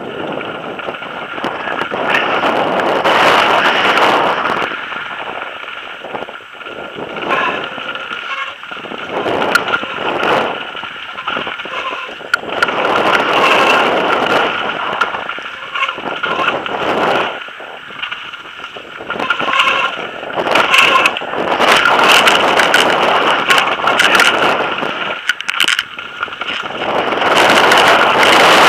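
Marin X-Trail 6.7 mountain bike running fast down a rough, stony dirt trail: tyres crunching over loose stones and the bike and camera clattering over the bumps, the rolling noise surging and dropping with the terrain.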